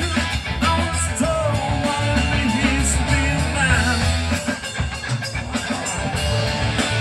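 Rock music with drums and electric guitar.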